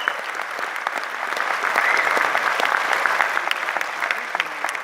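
Concert audience applauding.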